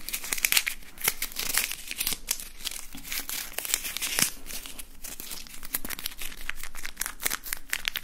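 A small white scrap crumpled and crinkled between the fingertips right at the microphone. It makes dense, irregular crackles, louder in short flurries about half a second in and around four seconds in.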